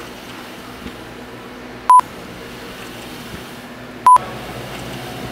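Two short electronic beeps at a single steady pitch, about two seconds apart, each cut on and off abruptly, over a low room hum.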